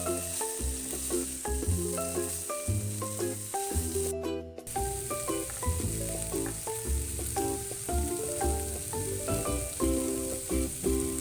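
Food sizzling in hot oil in a pan, a steady hissing. Melodic background music plays over it, and both briefly drop out about four seconds in.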